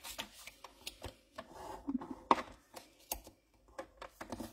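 Cardstock being handled and its fold lines creased with a bone folder on a paper trimmer: scattered light taps, clicks and paper rustles, with one sharper tap a bit over two seconds in.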